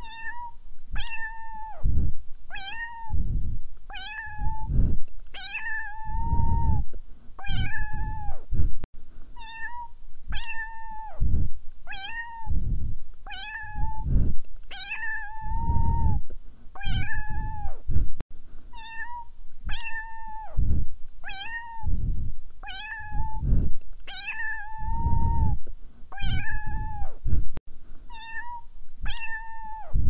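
A cat meowing over and over, about one meow every second or so, with a few longer drawn-out meows among the short ones. The same run of meows repeats roughly every nine seconds, as in a looped recording.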